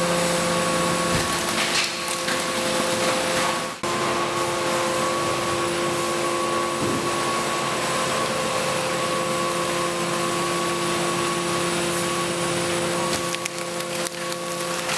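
Steady industrial machinery hum with a constant hiss and a few held tones, briefly dipping about four seconds in.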